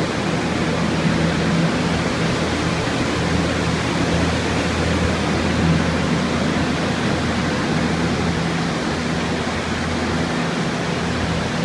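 Many water-damage drying machines running at once (Focus air movers, Dri-Eaz Sahara turbo fans and Phoenix R200 dehumidifiers): a loud, steady rush of air with a low hum underneath, drying out a flooded building's walls.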